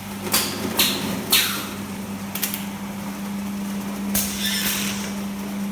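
Lemonade bottling machine running: a steady hum with several short hisses of released air or gas, the third one fading away.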